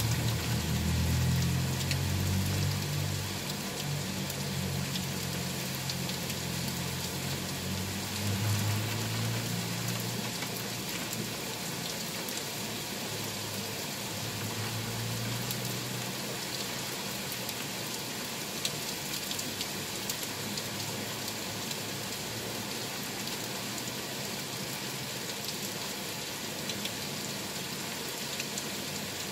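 Heavy rain pouring steadily, an even hiss. A low motor-vehicle engine rumble sits under it during the first ten seconds or so and returns briefly around fifteen seconds in.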